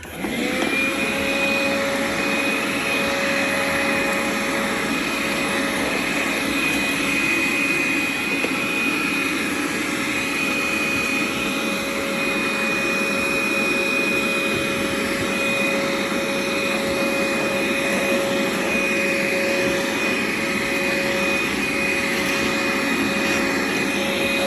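Electric power tool with a high-speed motor running steadily while cutting the recess for a mortice deadlock into the edge of a wooden door, with a high steady whine over the noise of the cut. It starts suddenly and keeps going without a break.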